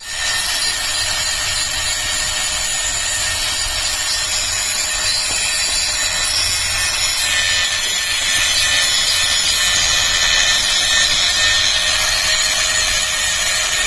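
Angle grinder running steadily against steel, a continuous gritty hiss with a faint steady whine.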